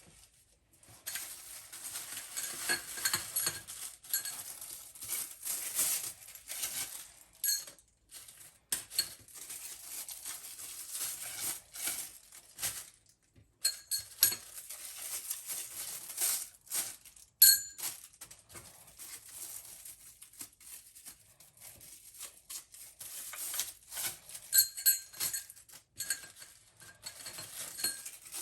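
Dishes, glassware and utensils clinking and knocking as they are handled, in dense runs of small taps with brief pauses.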